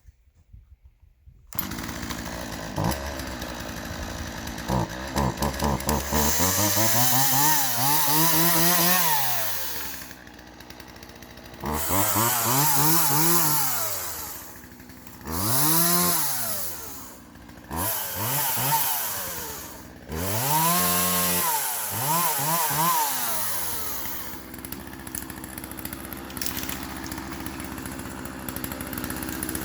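Small two-stroke Poulan chainsaw comes in suddenly and idles. It is then revved up and down about five times, its pitch climbing and dropping with each rev, and settles back to idle near the end.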